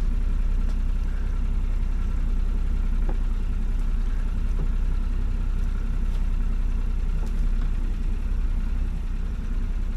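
Boat engine idling steadily, a low, even rumble that holds the same speed throughout.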